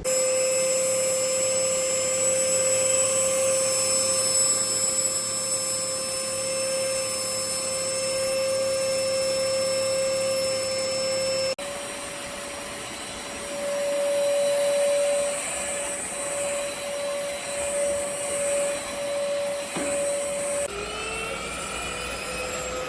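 Cordless stick vacuum cleaner's motor running with a steady whine. About halfway through it changes abruptly to a slightly higher, quieter pitch, and near the end it shifts again, the pitch rising as the motor speeds up.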